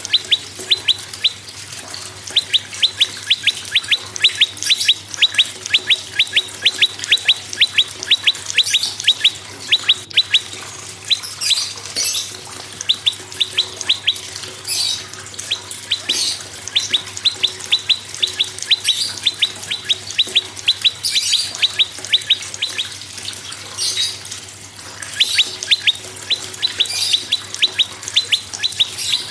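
Prenjak (prinia) singing: long runs of sharp, even chirps, about nine a second, broken by short, higher, buzzy phrases every couple of seconds.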